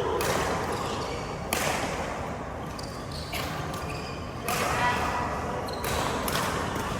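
Badminton rally: rackets striking the shuttlecock in an exchange of about five sharp hits, roughly a second and a half apart, with footsteps on the court between them.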